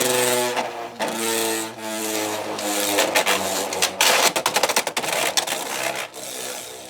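A Beyblade top spinning in a plastic stadium just after launch: a whirring hum that shifts down in pitch, mixed with rattling and scraping as it grinds around the stadium. It eases off near the end.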